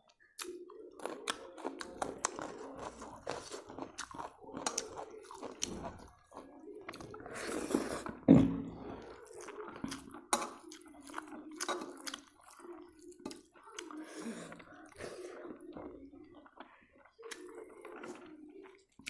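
Close-up eating sounds: chewing and crunching with wet mouth clicks, as rice and crisp pickled carrot slices are eaten by hand. One louder bump about eight seconds in.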